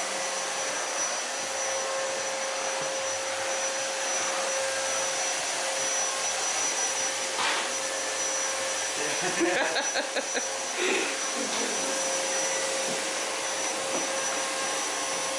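Canister vacuum cleaner running steadily on a hard floor, a constant rushing noise with a steady whine, with a brief clatter about ten seconds in.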